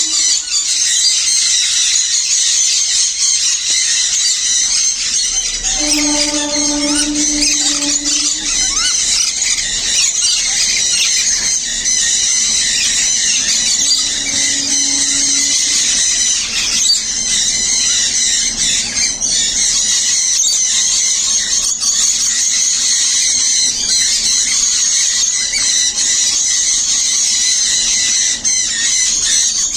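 A flock of small aviary birds chirping continuously in a dense, high-pitched chorus. A lower, steady-pitched call stands out about six seconds in and again briefly around fourteen seconds.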